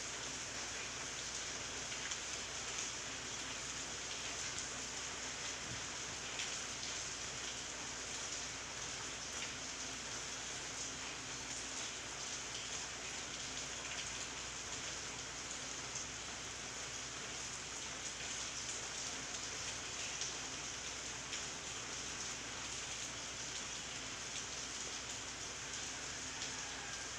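Steady rain falling on leafy garden shrubs, with scattered individual drops ticking.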